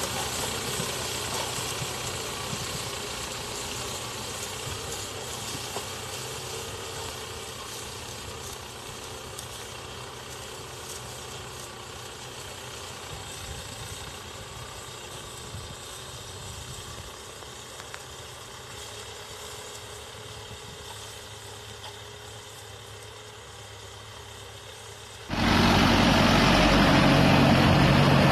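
Tractor engine running steadily as it pulls a disc plough through the field, growing slowly fainter as it moves away. About 25 seconds in, a much louder, close-up tractor engine and plough sound cuts in suddenly.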